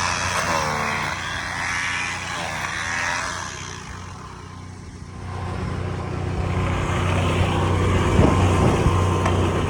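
An engine running steadily with a low hum. It grows quieter about four seconds in, then builds up again.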